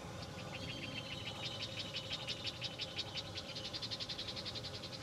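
A rapid, high-pitched pulsing trill from a calling animal, about ten short pulses a second, starting shortly after the beginning and growing louder.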